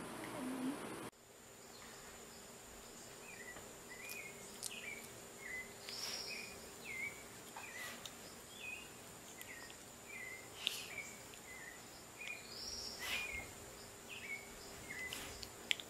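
Faint, short high-pitched animal chirps repeating about twice a second, with a longer, higher squeaky call about six seconds in and another about thirteen seconds in.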